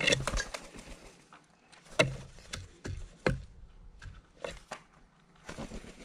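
A jackdaw's wings flapping as it takes off from a wooden feeding table, followed by a series of sharp knocks on the wood over the next few seconds.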